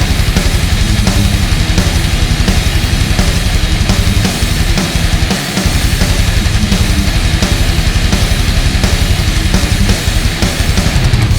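Instrumental heavy metal music: distorted guitars over fast, driving drums.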